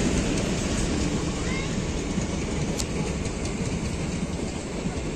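Passenger train coaches rolling past: a steady rumble of wheels on rail with a few sharp clicks, slowly getting quieter.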